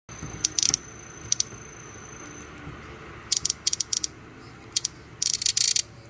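Large brown cicadas (Cryptotympana atrata) in a clear box giving a series of short, sudden high bursts of clicking, the longest and loudest near the end.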